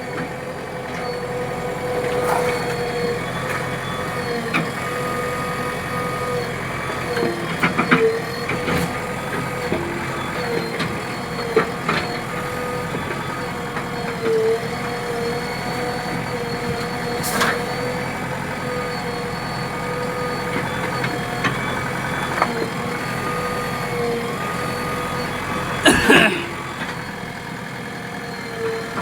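JCB 3DX backhoe loader's diesel engine running at working revs with a steady whine, and scattered knocks and clanks from the digging gear, the loudest near the end.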